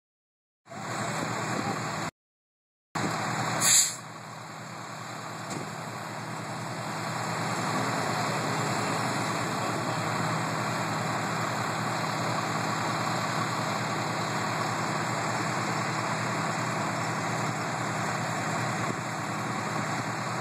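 Fire engine's diesel engine running steadily, a low hum under an even rush of noise, with one brief sharp hiss about four seconds in.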